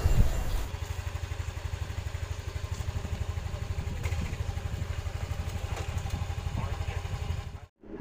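Yamaha Mio i 125 scooter's single-cylinder four-stroke engine idling with an even, rapid low pulse. It cuts off abruptly near the end.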